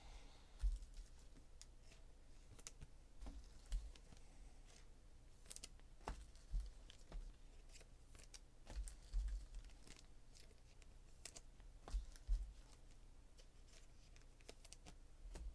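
Trading cards being handled and laid on a table: scattered faint clicks and soft taps, with a few low thumps, the loudest about a second in and near twelve seconds in.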